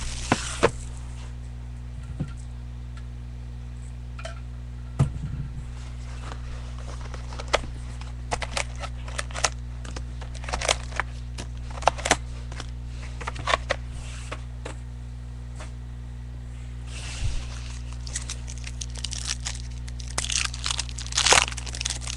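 Wrapping of a new box of trading cards being torn open and handled. Scattered crinkling, tearing and sharp clicks, with longer stretches of crinkling near the end, over a steady low hum.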